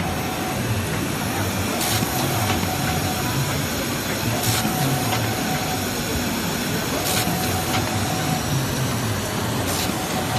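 Automatic rigid box making machine running, a steady mechanical clatter with a short hiss repeating about every two and a half seconds.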